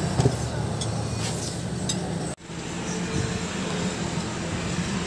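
Light clinks and taps as an amplifier circuit board with its aluminium heatsink is handled, over a steady room hum. The sound cuts out abruptly about two and a half seconds in, then the hum returns.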